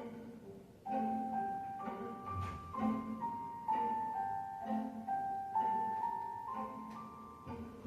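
Instrumental background music: a melody of held, bell-like notes on mallet percussion over a soft repeating low pulse, growing louder about a second in.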